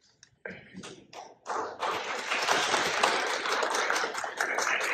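Audience applauding. A few scattered claps come about half a second in, then it builds to full, steady applause from about two seconds in.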